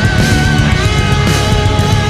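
Loud rock background music.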